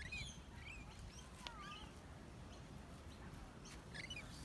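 Birds chirping in short calls that slide up and down in pitch, a cluster in the first second or two and another near the end, over a low steady rumble.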